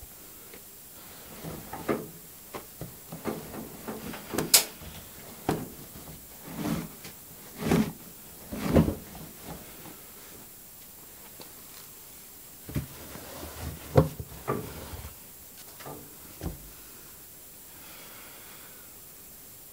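Laundry being pushed into the open drum of a front-loading washing machine: irregular soft thuds and knocks in two bursts, with the sharpest knocks about four and a half seconds in and about fourteen seconds in.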